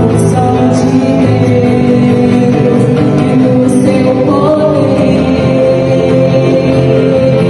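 Band music with singing, held notes over a steady accompaniment, in a gospel style.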